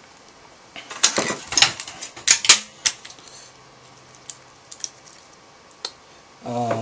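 Small gears and metal parts of an open Version 3 airsoft gearbox clicking and clattering as they are lifted out of the shell. A burst of quick clicks comes about a second in, then a few scattered single ticks.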